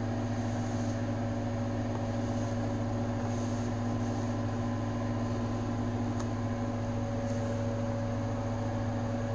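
Steady low electrical hum with a few held tones, from a motor-driven appliance running in the room. Faint brief rustles of a boxed toy being handled sit over it.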